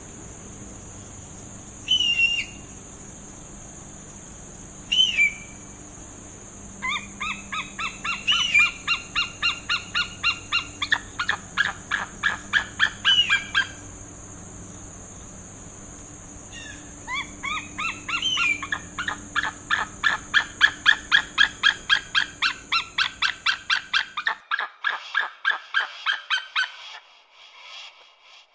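Hawk calling: two single short falling screams, then long runs of rapid repeated harsh notes, about four or five a second, the second run the loudest. A steady high-pitched hiss runs underneath until near the end.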